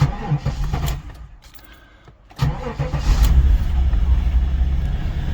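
The 1995 Pontiac Trans Am's 5.7-litre LT1 V8 being started. The starter cranks for about a second and stops, then about two and a half seconds in it cranks again and the engine catches and runs steadily. It starts because the VATS anti-theft system has been bypassed with a resistor.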